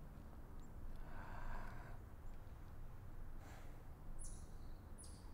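Quiet woodland ambience with a low steady rumble and a brief soft noise about a second in. Near the end a bird calls in short, high, repeated notes.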